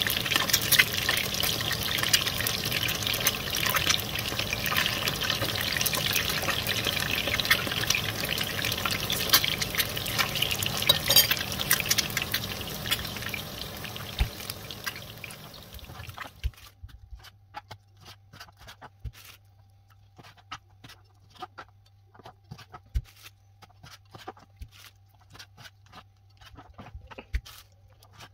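Liquid running or pouring steadily, which stops about 16 seconds in; after that, only scattered soft clicks and knocks over a faint low hum.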